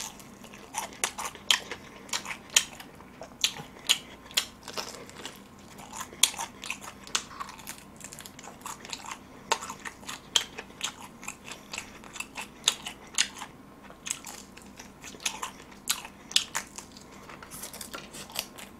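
A person biting and chewing extra-crispy fried chicken. The crust gives a steady, irregular run of sharp crunches, one to three a second.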